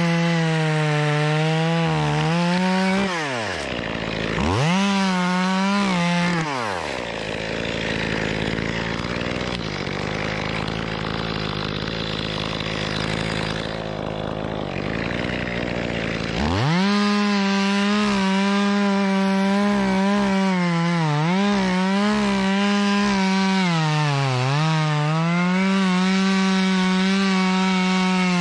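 Echo CS-2511TES top-handle chainsaw cutting a pine trunk at full throttle. It drops back to a lower, quieter running in the middle for about ten seconds, then cuts again at high revs, dipping briefly under load twice.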